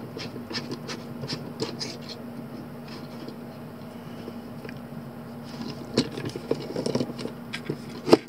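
Small metal clicks and scrapes of a keyless chuck being twisted open by hand and a steel mandrel being handled in it, over a faint steady hum. The clicks are scattered, sparse in the middle and busier in the last couple of seconds, with one sharper click just before the end.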